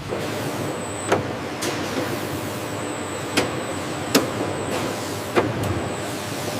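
Sawmill machinery running steadily, with sharp knocks every second or so, such as wood striking metal on the conveyors, and a thin high whine that comes and goes.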